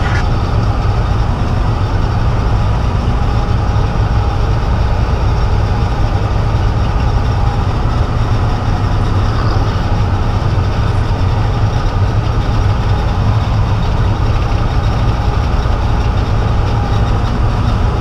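Peterbilt truck's diesel engine running steadily with a constant low drone, heard from inside the cab while the truck moves slowly.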